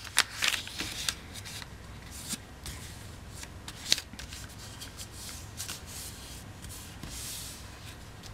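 Origami paper crinkling and crackling as hands fold it and press the fold flat: a run of sharp crinkles in the first second and a half, another crisp one at about four seconds. Softer rustling of hands smoothing the paper follows near the end.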